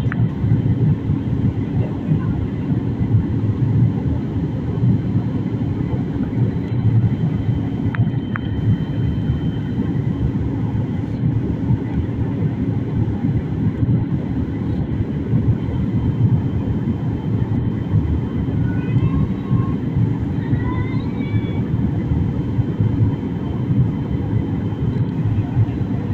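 Passenger airliner cabin noise in flight: a steady drone of engines and airflow, with a faint high whine.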